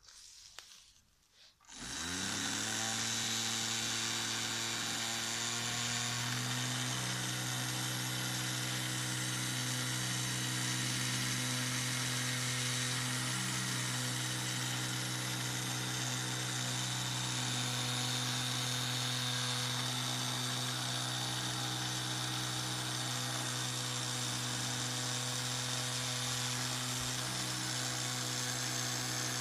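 Antique mechanical panda toy running: its small motor and gears whir steadily, starting about two seconds in. The pitch steps up slightly a few seconds later and then holds, with a faint repeating change in the gear noise as the arm works the spoon.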